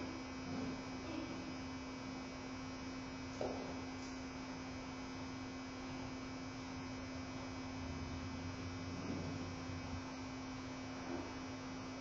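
Steady electrical hum, one even tone over a low hiss, with a faint knock about three and a half seconds in.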